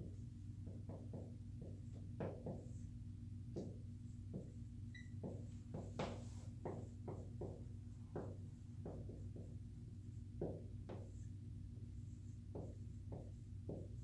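Dry-erase marker writing on a whiteboard: a series of short strokes, over a steady low hum.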